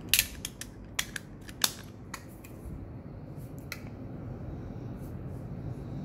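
Small sharp mechanical clicks from a camera lens being handled: a quick cluster of clicks in the first two and a half seconds, then a few fainter ones.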